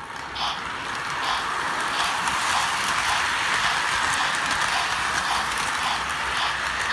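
Model train running along its track, heard from a camera riding on one of its cars: a steady rolling rumble of wheels on rails that grows louder about a second in, with faint clicks roughly once a second.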